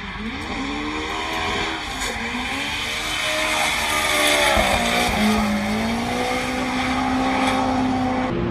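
Drift car's engine revving up and down through a corner, its tyres screeching as they spin. The car grows louder as it comes closer, and from about five seconds in the engine is held at steady high revs.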